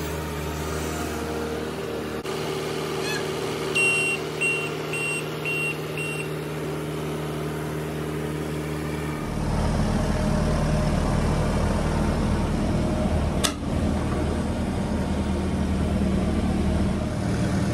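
New Holland 228 skid steer's diesel engine running steadily; about nine seconds in it gets louder and rougher as the machine works its loader arm. Five short beeps sound about four seconds in, and a sharp click comes near the end.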